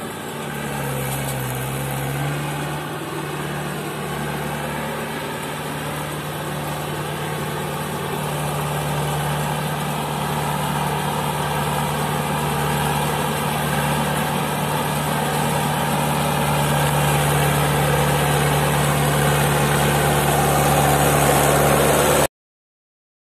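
Mahindra 575 DI tractor's four-cylinder diesel engine running steadily under load as it pulls a heavily laden sand trolley through soft sand. The engine note steps up about two seconds in and grows slowly louder as the tractor comes closer, then cuts off suddenly near the end.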